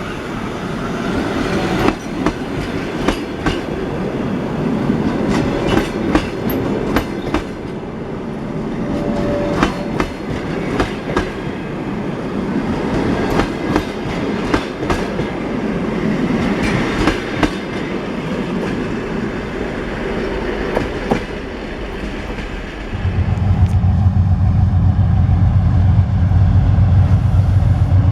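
Railway cars rolling past, their wheels clicking irregularly over the rail joints. About 23 s in, a loud, steady low hum takes over.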